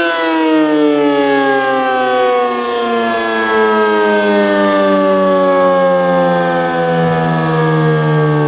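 ACA P50 outdoor tornado siren sounding a wail test. The pitch peaks right at the start, then falls slowly and steadily throughout.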